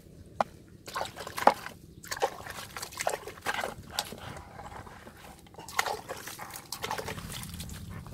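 Live fish and eels thrashing in a plastic bucket with a little water: irregular wet slaps and splashes as they flop against each other and the bucket's sides, the loudest about one and a half seconds in.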